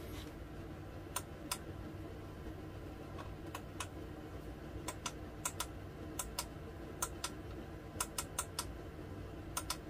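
Control buttons on the front panel of a 946C hot plate being pressed: a run of about twenty sharp clicks, many in close pairs like a press and release, as the temperature setting is stepped up.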